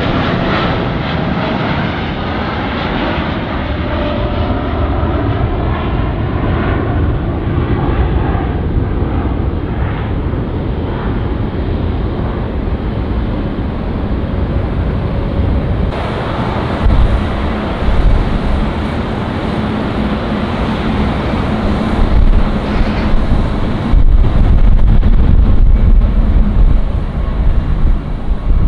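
Boeing 787 airliner's jet engines climbing away at takeoff power, with falling whining tones in the first few seconds. About halfway through it cuts to a Boeing 777 at takeoff thrust on its runway roll, a louder low rumble that swells near the end.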